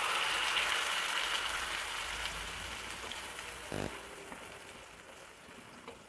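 Ground masala paste freshly added to hot oil in a frying pan, sizzling and dying down steadily. A short low rasp comes just before four seconds in.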